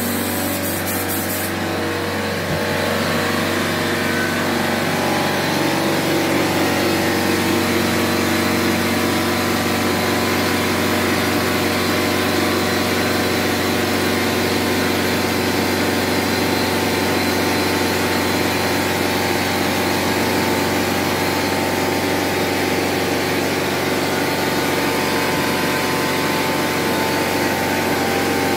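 A motor running steadily without a break, a machine drone made of several steady tones.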